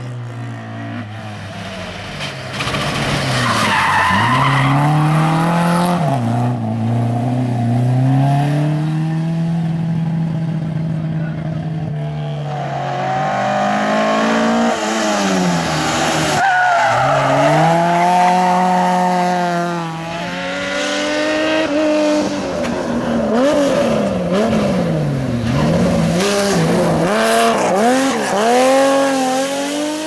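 Rally cars driven hard one after another on a tarmac hill road, engines revving up and dropping back again and again through gear changes and lifts for corners, with tyres squealing at times.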